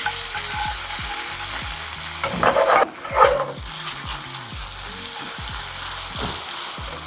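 Sweet potato gnocchi sizzling as they fry in butter with hazelnuts in a hot pan. About two and a half seconds in, a brief louder clatter as the pan is shaken and the gnocchi shift.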